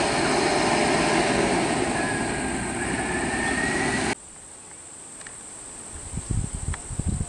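Large passenger buses driving past at close range: steady engine and road noise with a faint rising whine. It cuts off suddenly about four seconds in, leaving a much quieter background with irregular low knocks near the end.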